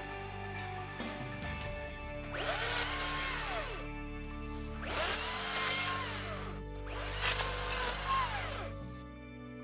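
Electric chainsaw triggered three times in short runs, each time speeding up, holding at full speed and winding down, with background music underneath.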